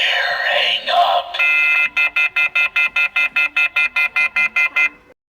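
Electronic sound effect from a Halloween toy phone. A noisy warbling effect gives way to a steady high beep, then rapid pulsed beeps at about five a second, which cut off abruptly near the end.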